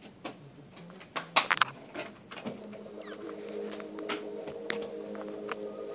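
A cat's paw pressing and batting against the recording phone, giving a quick cluster of loud bumps and scrapes about a second and a half in, then lighter handling ticks. A steady held chord sets in about halfway through.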